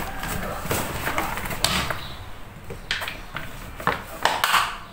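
Handling noise from a child's fabric school backpack being packed: a plastic water bottle pushed into the side mesh pocket, with rustling and a series of short knocks and scrapes, several close together near the end.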